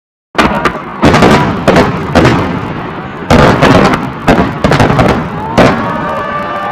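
Fireworks display: aerial shells bursting in quick succession, sharp bangs about one to two a second, each trailing into crackle. A steady whistling tone comes in near the end.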